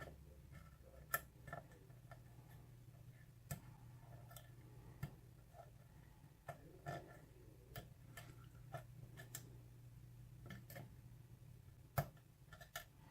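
Faint, irregular clicks of pin tumblers springing and setting as a hook pick lifts them one by one in a six-pin tumbler lock, with the strongest clicks about a second in and near the end. A steady low hum underneath.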